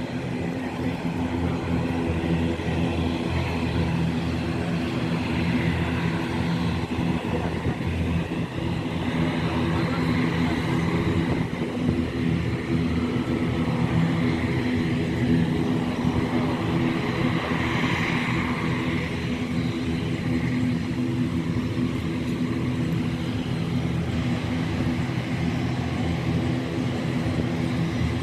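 Aircraft engines running steadily, a continuous hum made of several held tones.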